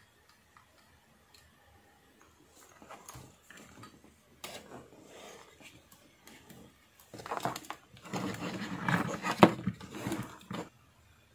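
Handling noise on a workbench: rustling, rubbing and light knocks as a circuit board, its wires and a small speaker are moved about, growing louder after about seven seconds.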